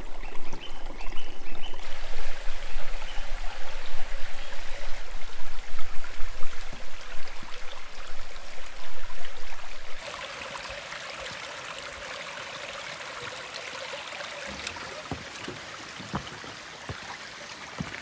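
Shallow creek water trickling and babbling over a pebble bed, close to the microphone. About ten seconds in, it cuts abruptly to a quieter, steady hiss, with a few light knocks near the end.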